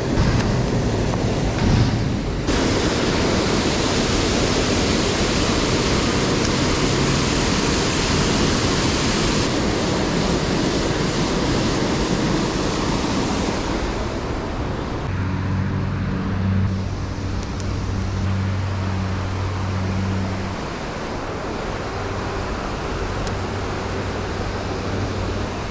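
Small creek waterfall rushing, a steady hiss of falling water that drops a little in level about halfway through.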